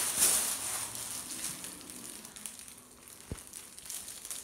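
Kittens crunching dry kibble from a metal bowl: a dense crackle, loudest at the start and fading over the first few seconds.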